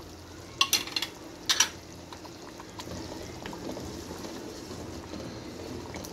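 Wooden spoon stirring a large pot of simmering nihari, the gravy sloshing and swirling. A few sharp knocks come in the first second and a half, then a steady churning of liquid.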